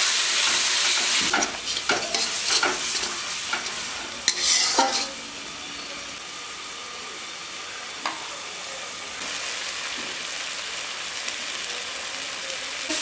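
Spice paste of garlic, ginger, chilli and turmeric frying in hot oil in a pan, with a loud hiss in the first second as water meets the oil. It is then stirred, with scrapes and knocks of the spatula against the pan for a few seconds, and after that settles to a steady, quieter sizzle.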